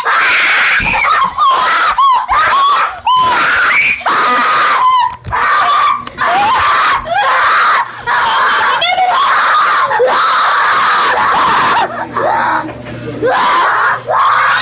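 Children screaming in play: long, loud, high shrieks one after another with only short breaks, easing briefly near the end.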